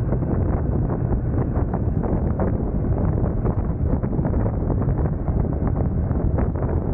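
Wind buffeting the microphone of a camera mounted on a motorcycle moving at speed: a steady, dense rumble with constant flutter, mixed with the bike's engine and road noise.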